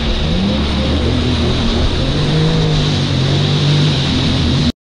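Jet ski engine running at speed with rushing water spray and wind noise; it stops abruptly near the end.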